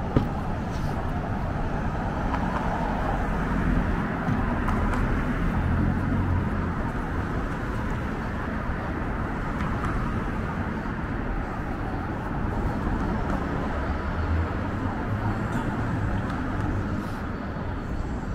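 City street traffic: vehicles passing with a steady low rumble that swells a few seconds in and again later, over the general hum of a busy downtown street.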